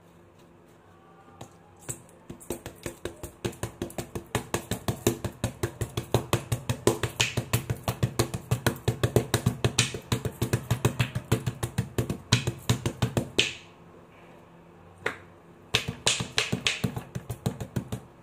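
Floury hands clapping rapidly together, about four or five claps a second, in a long run that builds in loudness, then a brief pause and a shorter second run.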